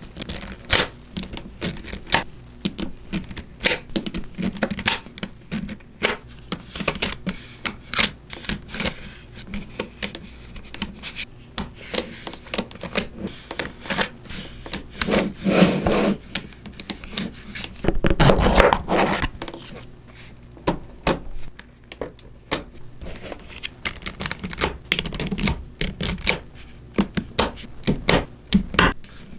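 Small magnetic balls clicking and snapping against each other in quick, irregular taps, as they are set in place one after another. Twice about halfway through there is a longer, louder rattle, as a cluster of balls rubs and rolls together.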